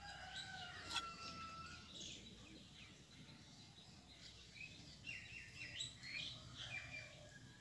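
Faint background birdsong: small birds chirping in short high calls scattered throughout, with a cluster of quick chirps around five to six seconds in. A single sharp tap about a second in.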